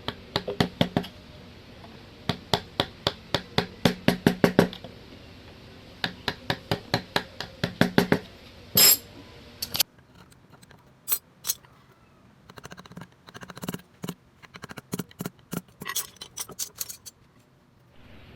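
Mallet tapping a carving chisel into rosewood in quick runs of sharp knocks, several strikes a second with short pauses between runs. About ten seconds in, the steady background hum drops away and the taps become fainter and more scattered.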